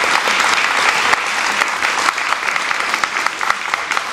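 Audience applauding, the dense clapping gradually thinning out so that single claps stand out near the end.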